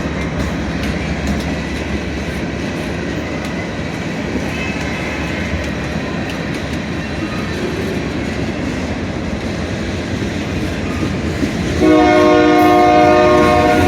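Union Pacific mixed freight cars rolling past with a steady rumble and wheel clatter. About twelve seconds in, a locomotive horn sounds a loud, chord-like blast that holds for about two seconds.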